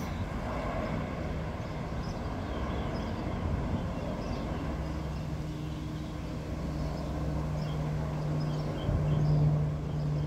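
Two V-22 Osprey tiltrotor aircraft flying overhead, their rotors making a deep, steady, loud rubbing drone. A low hum in it grows stronger from about halfway through.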